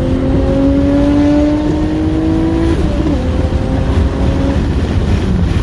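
Nissan Skyline R32 GT-R's single-turbo RB26 straight-six pulling under load, its note rising steadily in pitch, then breaking and dropping lower about three seconds in, as at a gear change or lift-off, over a steady low rumble.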